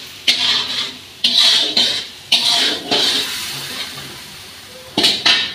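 Tomato-onion masala sizzling in a kadai as it is stirred with a metal spatula: the sizzle flares up in short hissing bursts, three about a second apart and one more near the end, each dying away quickly.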